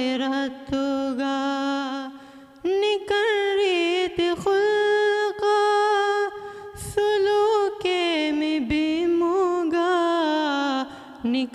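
A boy singing a madhaha, a Maldivian Islamic devotional song, solo and unaccompanied into a microphone, with long held, ornamented notes and short pauses for breath.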